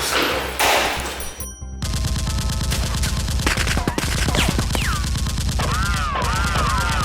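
Rapid automatic gunfire sound effects dubbed over background music, starting after a short break about a second and a half in, with falling whistling sounds in the second half.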